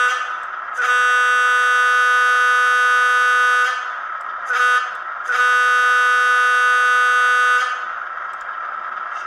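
Digitally sampled Wabco A200 air horn from a LokSound 5 decoder, played through an N scale FP7A's small speaker: the tail of one blast, then a long blast, a short one and a long one, finishing the long-long-short-long grade-crossing signal. Under the horn the decoder's steady EMD 16-567 diesel prime mover sound carries on.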